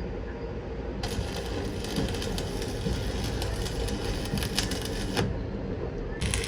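Arc welding on a broken truck axle housing: a dense, even crackle that starts abruptly about a second in, cuts off after about four seconds and starts again near the end, over a steady low rumble.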